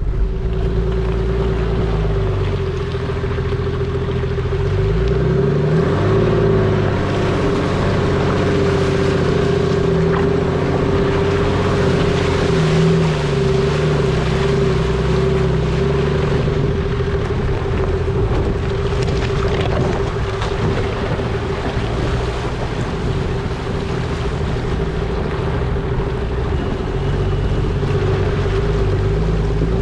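A four-wheel-drive vehicle's engine pulling under load off-road, the revs rising and falling, with a steady whine running through it and wind buffeting the outside-mounted microphone. Near the end it is driving through a shallow river.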